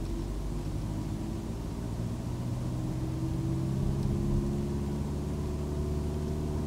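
Car engine running steadily while driving, heard from inside the cabin, a steady low hum.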